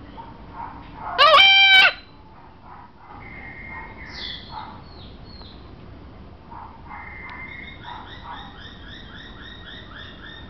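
Caged birds calling: one loud, shrill squawk about a second in, then scattered chirps, and in the second half a quick run of repeated chirps, about four a second.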